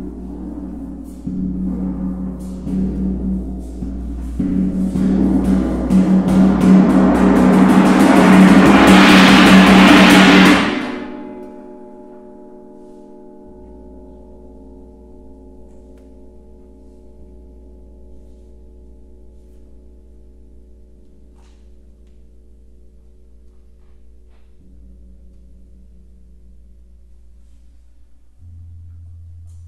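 Tam-tam played in a rapid roll that swells over about ten seconds into a very loud, bright, crashing shimmer, then cuts off suddenly. Several low ringing tones linger faintly afterwards.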